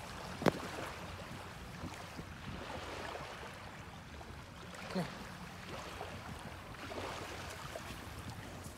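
Small waves washing onto a beach, with wind on the microphone. A sharp knock sounds about half a second in, and a softer thump about five seconds in.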